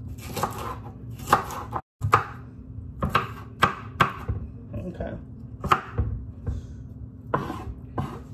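Chef's knife chopping green bell pepper on a wooden cutting board: irregular sharp knocks of the blade against the board, about one or two a second, over a steady low hum. The sound drops out briefly just before two seconds in.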